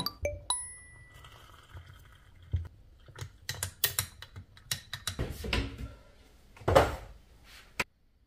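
Metal teaspoon clinking against a glass mug while hot chocolate is stirred: a ringing ding about half a second in, then a run of quick light clinks and a louder knock near the end.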